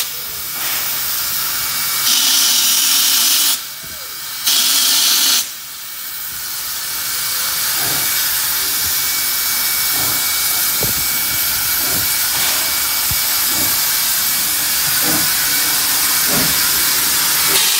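Steam locomotive 5917, a NSW 59-class 2-8-2, hissing as it pulls away, blowing steam from its open cylinder drain cocks. Two loud bursts of hiss come in the first six seconds, then the hiss runs on steadily with scattered knocks as the engine rolls past.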